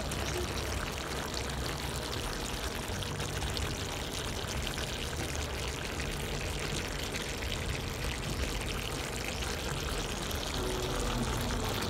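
Chicken curry simmering in its sauce in a wok: a steady crackling hiss.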